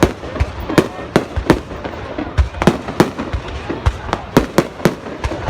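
Fireworks bursting: a rapid, irregular run of sharp bangs, several a second, over a steady background rumble and crackle.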